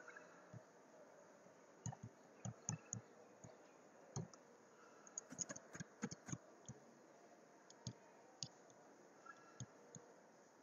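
Faint, irregular clicks of a computer mouse and keyboard, with a short run of typing about five to six seconds in.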